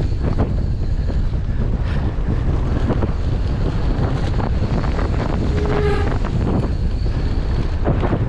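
Wind buffeting the action camera's microphone as a mountain bike descends a dry dirt trail at speed, with the bike rattling and knocking over bumps. A brief squeal about six seconds in.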